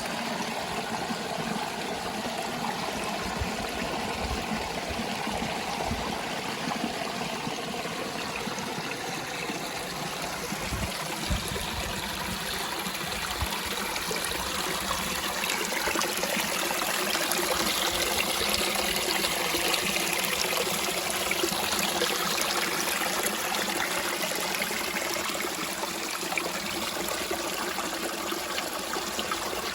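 Water of a small waterfall running and splashing steadily, a continuous rushing trickle that swells slightly in the middle.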